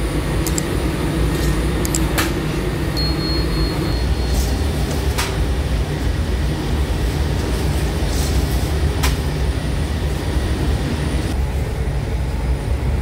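Machinery of a machine-made taftoon bread line, a dough sheeter with its conveyor feeding a rotating oven, running with a steady low rumble. A few sharp clicks sound through it, and a brief high beeping comes about three seconds in.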